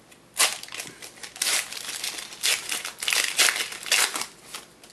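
Plastic wrapper of a trading-card pack crinkling as it is torn open and pulled off the cards, in a run of crackling bursts starting about half a second in and stopping shortly before the end.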